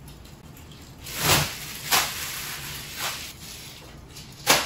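Clear plastic garment bags crinkling and rustling as an armful of packaged clothes is handled and set down on a chair, in four short bursts, the last the sharpest.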